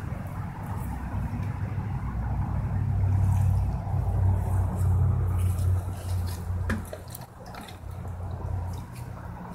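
A low motor rumble that swells after a couple of seconds and fades away about seven seconds in.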